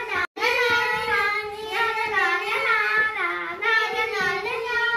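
Children singing in high voices, a held, wavering melody that cuts out for a moment just after the start.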